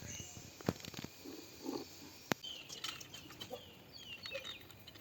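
Quiet scattered clicks and taps from objects being handled, with short high chirps from birds in the background through the second half.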